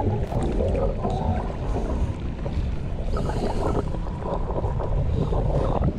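Muffled, low rumbling rush of stream water heard from a camera held underwater, with little high-pitched sound.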